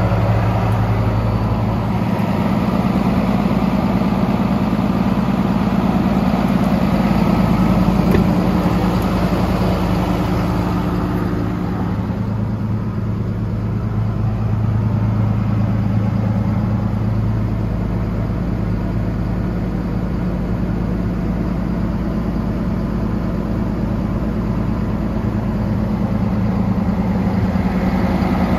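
The truck's Cummins ISB inline-six diesel idling steadily. About twelve seconds in the sound turns duller as it is heard from inside the cab.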